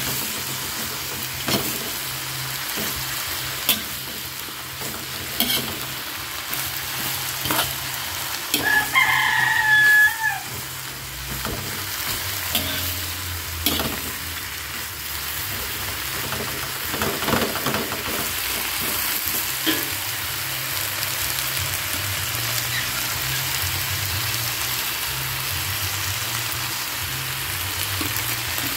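Shredded cabbage, carrot and green beans sizzling in a hot wok, with a metal spatula scraping and tossing them at irregular strokes. About nine seconds in, a single drawn-out pitched call sounds for about two seconds over the sizzle.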